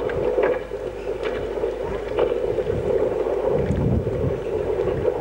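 Wind buffeting the camcorder microphone in uneven gusts of low rumble, over a steady droning hum.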